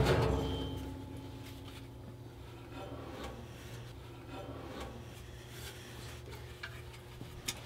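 Soft scraping and rubbing as an electric motor with a V-belt pulley is handled and set into place inside a steel stand, with a small click near the end, over a low steady hum.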